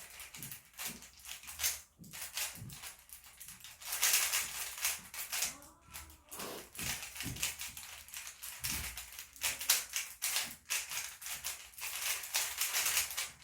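Plastic Rubik's-type puzzle cube being turned fast by hand, an uneven run of clicking and clacking as its layers snap round. The cube is being broken in after its yellow side was loosened.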